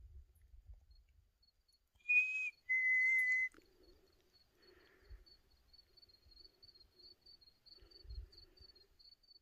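A person whistling two short, clear notes about two seconds in, the first slightly higher than the second, over a faint steady cricket trill.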